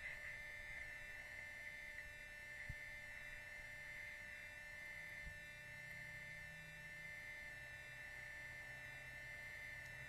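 Faint steady buzzing hum, strongest in a high band, with two soft low thumps about a third and halfway through.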